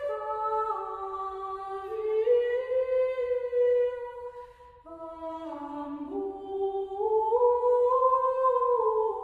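Background music of slow a cappella singing: long held notes from several voices together, moving in steps, with a short lull about four and a half seconds in.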